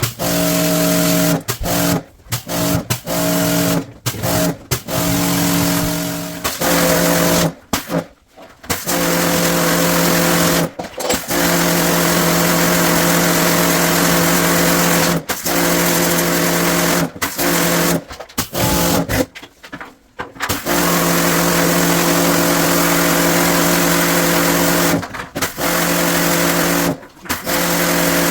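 Electric motor running steadily with a hiss, stopping briefly and starting again about a dozen times, its longest run lasting about four seconds.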